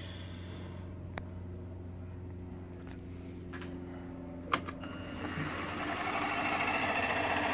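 Small bench milling machine running with a steady hum and a few light clicks, its motor noise swelling and growing louder from about five seconds in as the spindle is brought up to speed.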